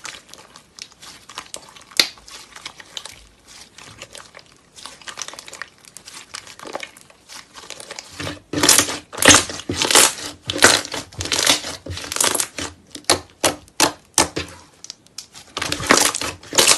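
Thick white slime being pressed, folded and stretched by hand, giving a fast, fine crackling and popping. From about halfway through, the crackles come in louder, denser bursts as the slime is squeezed.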